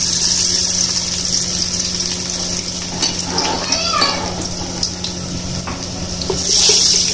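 Chopped garlic sizzling steadily in hot mustard oil in a metal pot. The sizzle swells about six and a half seconds in as a spatula stirs it.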